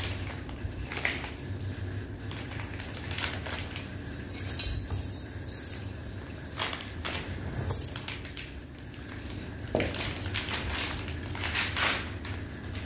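Plastic packaging crinkling and rustling, with scattered light metal clinks and knocks, as steel saddle-stay brackets and bagged hardware are unwrapped and handled. The crinkling is loudest about five seconds in.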